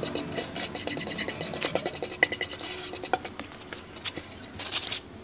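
Stiff brush scrubbing the rough sandy inside of a freshly cast cement bowl in rapid scratchy strokes, thinning out after about three seconds.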